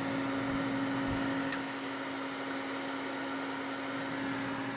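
Steady machine hum with a constant low tone, and one sharp click about a second and a half in.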